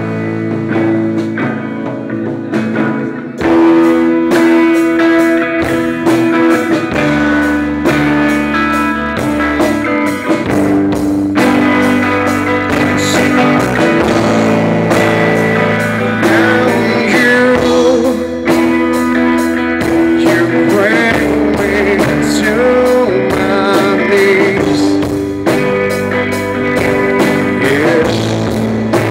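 Live rock band playing: an electric guitar at first, then the full band with drums and bass comes in about three and a half seconds in and carries on loudly.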